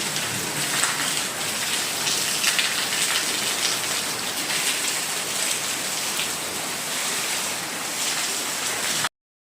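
Heavy rain falling steadily on a house: an even hiss with scattered drop patter. It cuts off abruptly about nine seconds in.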